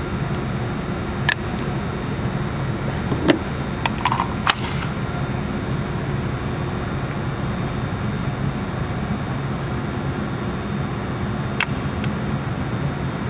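Steady air-handling drone with a few sharp clicks scattered through it, the loudest about three seconds in.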